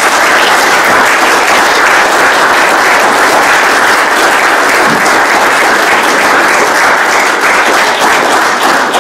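Audience and panel applauding steadily: many hands clapping in a dense, even patter.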